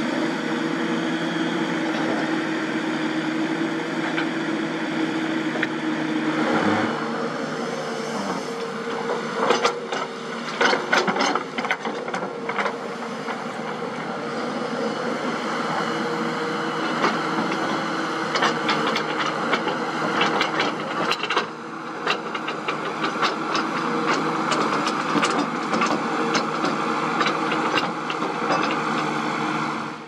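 Kobelco SK200 hydraulic excavator's diesel engine running steadily while it digs. Bursts of sharp clattering and knocking, as rock and dirt strike the bucket, come about a third of the way in and again through most of the second half.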